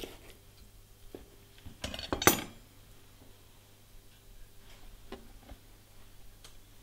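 A carving fork and knife set down on a plastic cutting board: a short metal clatter about two seconds in, then a few faint clicks.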